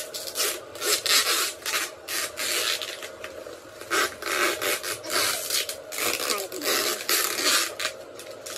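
Clear plastic bag crinkling and rustling in irregular bursts as a turbocharger inside it is wrapped and handled.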